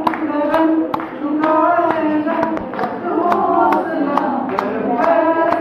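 Singing over a steady, sharp beat of about two beats a second.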